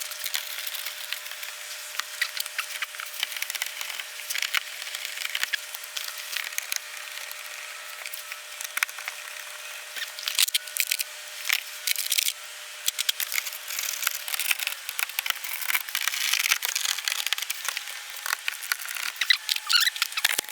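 Hands working on car parts during a sensor install: a continuous run of scratchy rubbing and rustling with many sharp clicks, over a faint steady hum.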